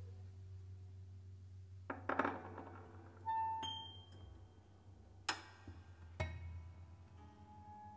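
Sparse free-improvised music for piano, double bass, drums and saxophone: a steady low drone under scattered clinks, knocks and short ringing tones, some played on the strings inside a grand piano. The loudest strikes come about two seconds in and just after five seconds.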